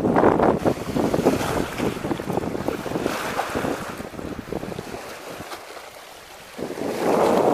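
Wind buffeting the microphone over choppy water and waves. The gusts ease off for a moment about five seconds in, then pick up again.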